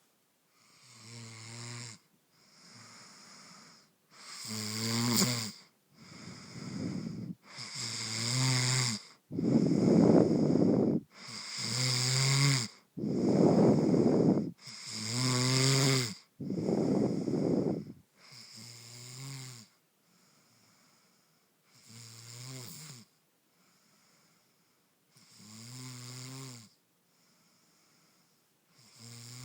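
A sleeping woman snoring, one snore on each breath every second or two; the snores grow loud through the middle, then turn quieter with longer pauses near the end.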